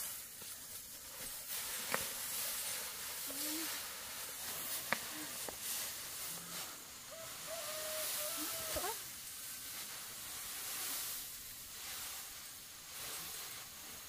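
Dry rice straw rustling and crackling as it is gathered by hand onto a heap, with a few sharp snaps. A short animal call comes in about eight seconds in.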